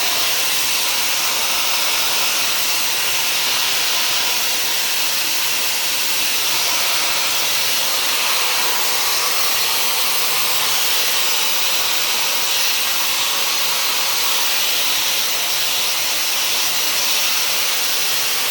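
Dyson hair dryer with a diffuser attachment running continuously, a steady rushing of air with a faint hum beneath it.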